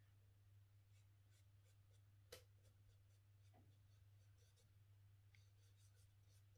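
Faint scratching of a drawing tool shading on paper in short, irregular strokes, with one sharper tap about two seconds in, over a low steady hum.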